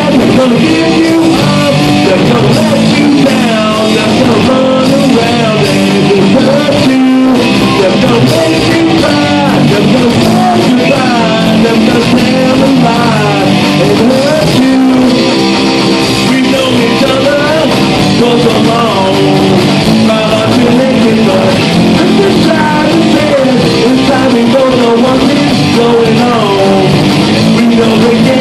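Live rock band playing loud and without a break: electric guitars, bass guitar and drums.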